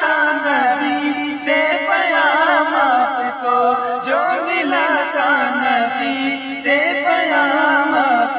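Devotional manqabat singing: a voice carries long, wavering, ornamented notes with no clear words.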